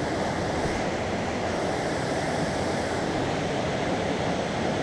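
Steady rush of a small mountain stream running.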